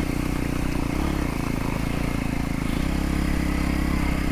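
KTM RC 200's single-cylinder engine running steadily as the motorcycle is ridden, its note shifting slightly about three seconds in.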